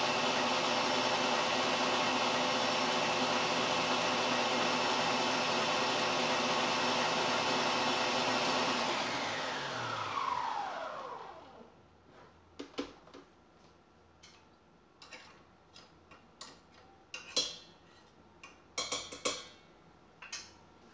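Electric stand mixer running steadily, then switched off about nine seconds in, its motor winding down with a falling whine. Scattered light knocks and clinks follow.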